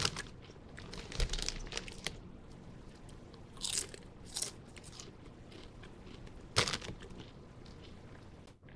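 Lay's potato chips being bitten and chewed close to the microphone: crisp crunching in scattered bursts, with a few louder crunches.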